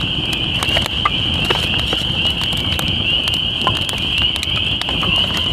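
A steady high-pitched chorus of many frogs calling without a break, the loudest sound here. Over it a campfire of split kindling crackles, with scattered sharp pops and clicks as the sticks burn and are laid on.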